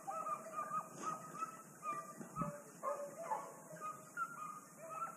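Hunting dogs yelping and baying in a quick, unbroken string of short high calls, the hounds giving tongue as they work a wild boar drive.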